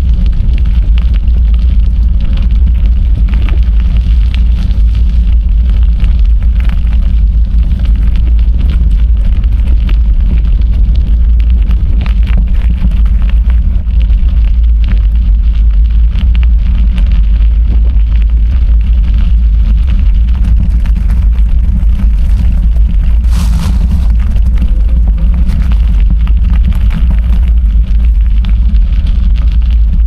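Wind buffeting the microphone of a camera carried on a moving bicycle: a loud, steady low rumble, with scattered small clicks and rattles over it.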